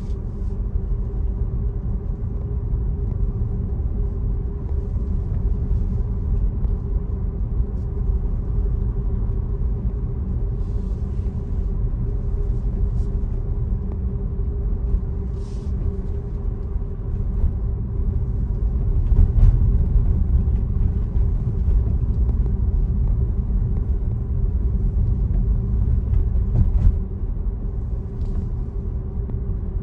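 Tesla driving on the road: a steady low rumble of tyre and road noise, with a faint steady hum underneath and a few brief ticks.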